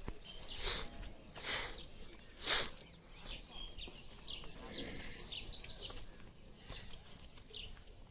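Small birds chirping in quick, short calls through the middle and later part. Before that come three short, loud hissing bursts in the first three seconds.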